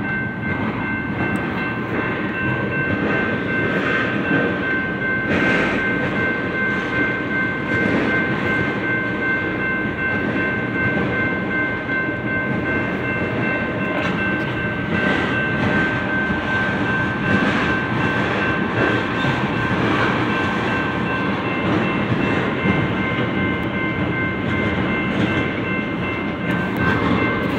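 A freight train of autorack cars rolling past a grade crossing: a steady rumble and clatter of wheels on the rails, with a thin steady high-pitched tone running over it.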